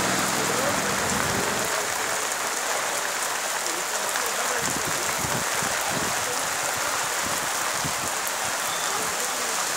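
Steady rain falling on a street, an even hiss. A small engine fades away during the first second or two.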